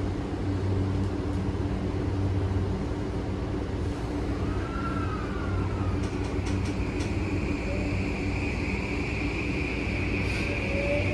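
Running sound of a Tokyu 2020 series electric train heard from inside the passenger car: a steady rumble and hum of wheels and motors. A brief falling whine comes about five seconds in, a high steady whine sets in soon after, and a faint rising whine is heard near the end.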